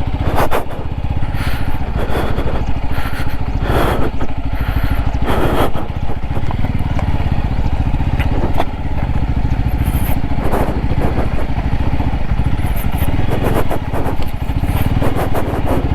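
Single-cylinder motorcycle engine running steadily while riding over rough off-road ground, with scattered knocks and rattles.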